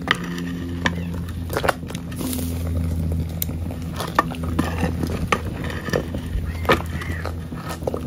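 A utensil stirring a large pot of menudo, with irregular clicks and knocks against the pot over a steady low hum.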